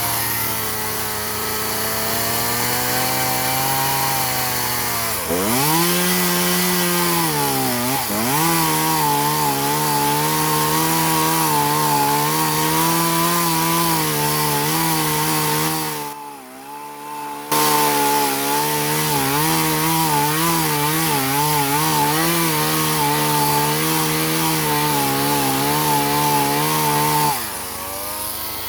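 Chainsaw running at full throttle while cutting through a tree limb, its pitch dipping twice as the chain bogs in the wood, then recovering. The sound breaks off briefly past the middle, and the engine pitch falls near the end as the throttle is let off.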